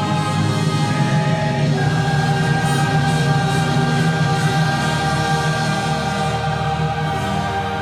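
Choir and orchestra performing a gospel cantata piece, changing chord about two seconds in and then holding it for several seconds.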